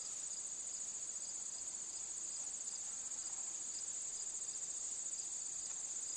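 Insects trilling in a steady, continuous, high-pitched chorus, with a fainter insect pulsing about three times a second beneath it.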